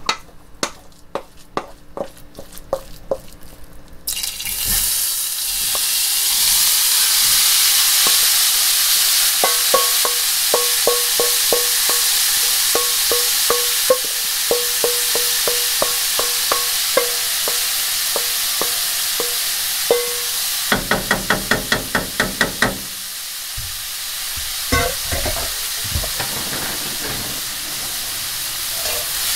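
A knife chops on a cutting board in quick, regular strokes. About four seconds in, food goes into a hot pan and sizzles loudly. A spatula then taps and scrapes the pan in a steady rhythm as seasoned ground pork is stir-fried, with a quicker run of taps a little past the two-thirds mark.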